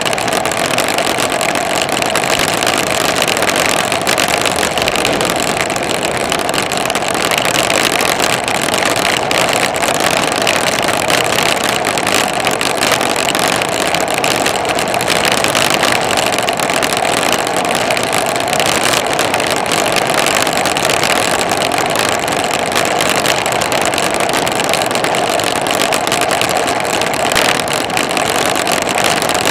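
Steady rushing wind and tyre noise on a handlebar-mounted camera moving at speed along an asphalt road.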